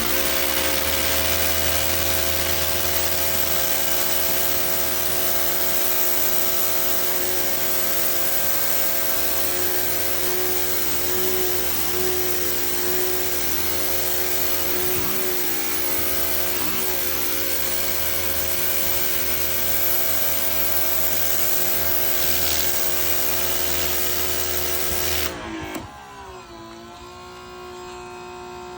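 Ryobi 3000 PSI brushless electric pressure washer running with its turbo nozzle: a steady hiss of the water jet over the motor and pump's hum. About 25 seconds in the spray cuts off, the pitch falls as the pump winds down, and a quieter hum is left.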